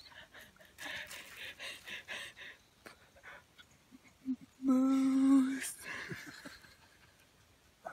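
A woman's breathy, excited laughing sounds, then a closed-mouth hum held steady for about a second, just past the middle.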